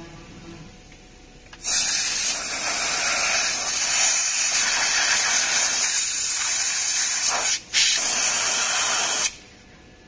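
Compressed-air blow gun hissing as it blows drilling dust off a freshly drilled door panel: one long blast starting about two seconds in, a brief break, then a shorter second blast that cuts off suddenly near the end.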